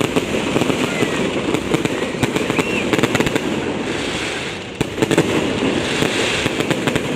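Fireworks crackling in a dense run of many small rapid bangs, with a fresh cluster of sharp cracks about five seconds in.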